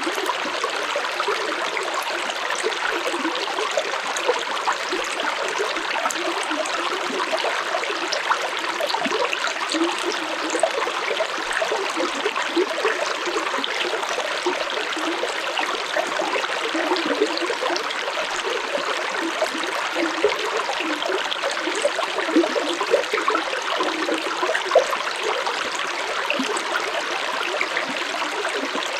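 Stream water flowing steadily, a constant rushing with many small splashes and gurgles.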